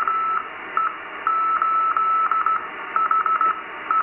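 Morse code call sign OE8HSR sent by a Goodwatch, a ham-radio calculator watch, on the 70-centimetre band and received by a ham transceiver. It comes through the radio's speaker as a single keyed tone of dots and dashes over steady receiver hiss.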